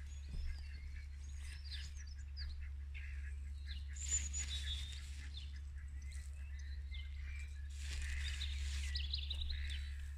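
Wild birds singing: a busy mix of short chirps, whistles and quick trills, over a steady low hum.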